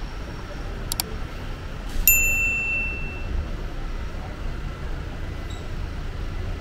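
A single sharp metallic ding about two seconds in, ringing and fading over about a second, just after a quick double click. Beneath it runs a steady low rumble of road traffic.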